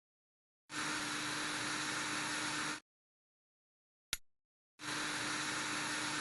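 A steady hiss with a faint low hum lasts about two seconds. A sharp click follows, and then the same hiss starts again.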